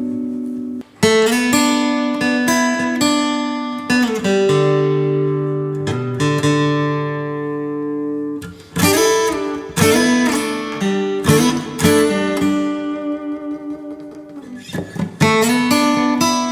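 Tagima Woodstock TW-25 folk-body acoustic guitar being played: chords strummed and left to ring, with a brief stop about a second in. Near the end comes a softer stretch of single picked notes, then strumming again.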